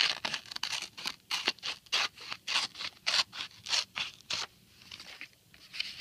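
Scissors cutting through paper, a quick series of crisp snips at about three a second, which stop about four and a half seconds in.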